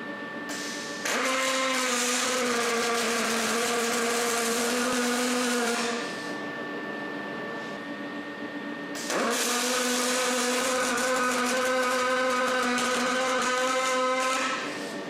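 An electric power tool's motor runs twice, each time for about five seconds, with a steady whine and a gritty hiss. It starts about a second in and again about nine seconds in. In the gaps a faint steady hum remains.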